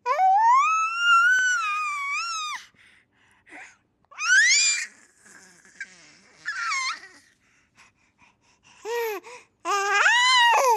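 A baby's high-pitched vocal sounds: a long drawn-out call at the start, shorter rising calls about four and seven seconds in, and another long call near the end, with short quiet gaps between.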